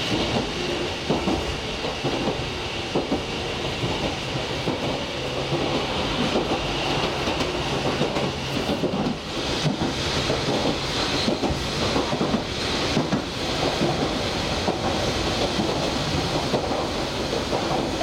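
Toyama Chihō Railway electric train running along the line, heard from inside the carriage: a steady rumble and clatter of steel wheels on the rails, with frequent short knocks.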